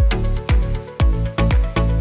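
Background electronic dance music with a strong, steady kick-drum beat and sustained synth notes.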